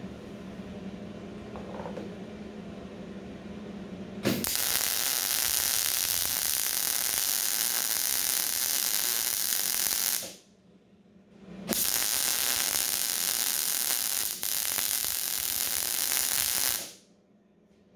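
Electric arc welding on heavy steel plate: two steady runs of loud, even arc sizzle of about six and five seconds, with a short break between. The machine is set colder than wanted for this thick plate, left over from welding thin material.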